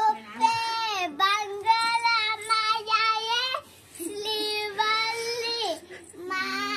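A young girl singing in a high voice, in phrases of held notes with short pauses between them.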